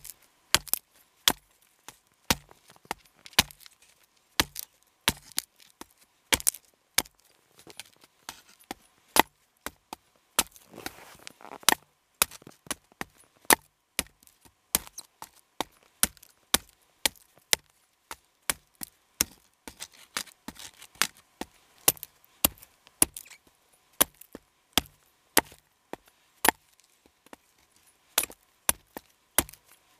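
A long-bladed knife chopping down into a thin upright stick of dry wood, splitting off kindling: sharp knocks about every half second to a second. There is a brief scuffing rustle about eleven seconds in.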